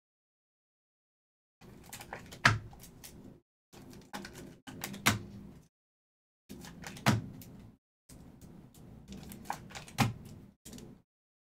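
Trading cards being handled and cased on a table: rustling and light knocks, with four sharp clicks spaced two to three seconds apart. The sound comes in stretches broken by dead silence.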